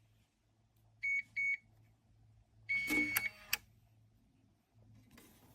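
Small biometric pistol safe beeping and unlocking: two short electronic beeps, then a longer beep of the same pitch over a clatter of the latch and lid, ending in one sharp click.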